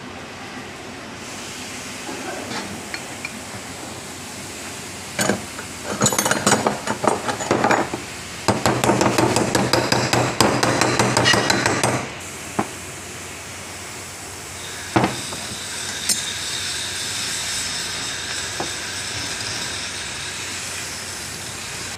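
Rapid metal-on-metal hammer blows on a steel punch set against the bearing in an alternator's aluminium end housing, in two quick runs of many strikes a second in the middle, then a few single knocks.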